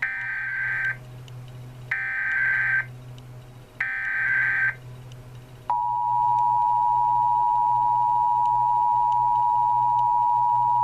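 Emergency Alert System test tones: three bursts of the SAME digital header, each about a second long with a screechy data warble, about a second apart. About a second after the last burst, the steady two-tone EAS attention signal (853 and 960 Hz together) starts and holds.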